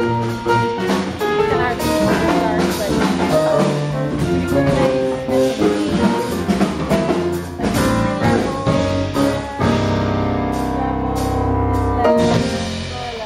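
Live band rehearsing on stage, with drums and other instruments playing a tune. It closes on a long held chord over a low bass note, which stops shortly before the end and rings away.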